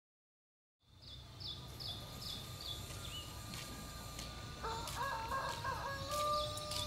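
Silence for the first second, then rural outdoor ambience: a small bird gives a quick run of short falling chirps, and near the end a rooster crows, its last note long and held.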